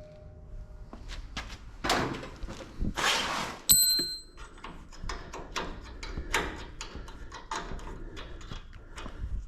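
Metal hand tools working on a truck's rear leaf-spring suspension: a run of knocks, scrapes and clatter, with one ringing metal clang about three and a half seconds in.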